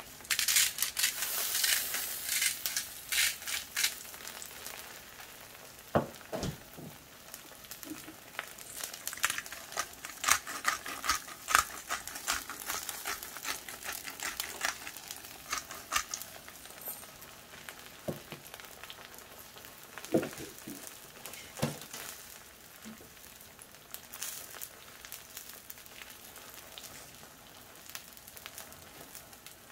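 Eggs frying in oil on a Blackstone 22-inch griddle top: a steady sizzle with frequent crackles and pops of spattering fat, busiest in the first half and thinning out after about 16 seconds. A few dull knocks come through, about 6 seconds in and twice again near 20 to 22 seconds.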